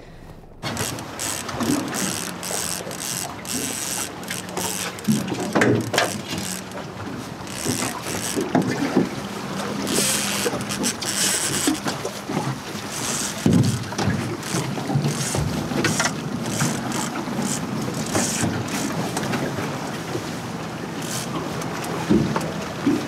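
Wind buffeting the microphone on an open boat at sea, over the steady low hum of the boat's engine running.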